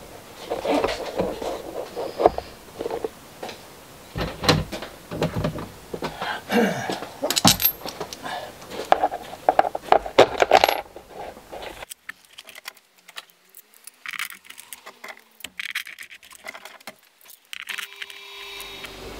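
Steel washers and nuts clinking and clattering, with knocks against the plastic housing, as they are fitted by hand onto mounting bolts. The clatter is busy for the first half, then drops to scattered faint ticks.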